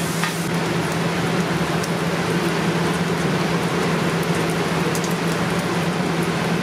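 Bacon lardons frying over high heat in a large aluminium pot, rendering their fat: a steady sizzle with scattered small crackles and pops, over a steady low hum.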